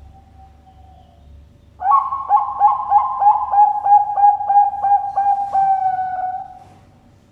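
Zebra dove (perkutut bangkok) singing: after a faint coo, a loud rapid run of about a dozen short staccato coos, ending in one longer drawn-out note.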